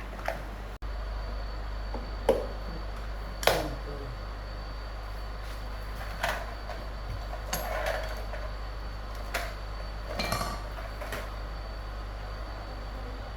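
Metal tools and parts clinking and knocking as they are handled, about seven separate strikes with the loudest two near the start, over a steady low hum and a faint high-pitched tone.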